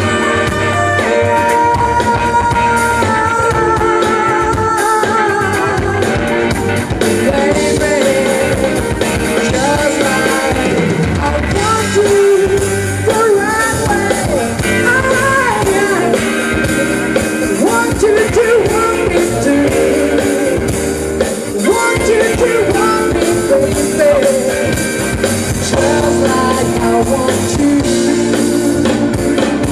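Live band playing an upbeat song: a woman singing lead over electric guitars, a drum kit and keyboards.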